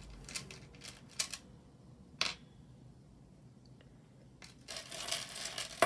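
Small metal costume-jewelry earrings being handled: a few light clicks in the first couple of seconds, then about a second of rustling near the end.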